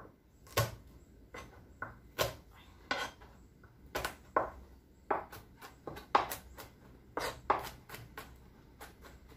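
Kitchen knife chopping garlic on a cutting board: irregular sharp knocks of the blade on the board, about two a second.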